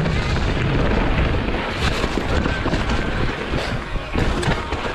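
Wind buffeting the microphone as a mountain bike rides down a trail, with a steady rumble from the tyres and scattered knocks and rattles from the bike over rough ground.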